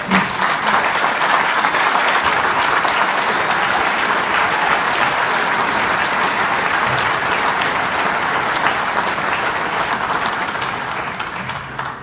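Large banquet audience applauding, a dense steady clapping that dies away near the end.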